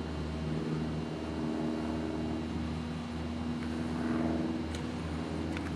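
Steady drone of a running engine, its pitch wavering slightly, over a constant low hum.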